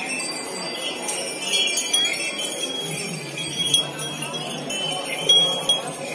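Small bells jingling and metal chains clinking in short, irregular rings, over the murmur of a crowd.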